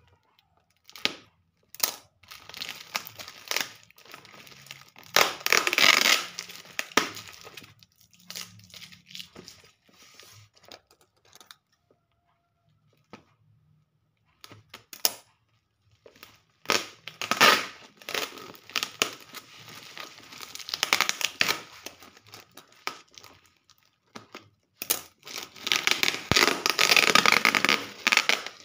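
Black plastic parcel wrapping and packing tape being torn and crinkled open by hand: irregular bursts of ripping and rustling, with a quiet spell midway and the busiest stretch near the end.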